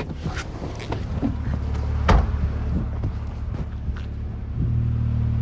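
Car engine idling with a steady low hum, with a single thump about two seconds in. The hum grows louder near the end.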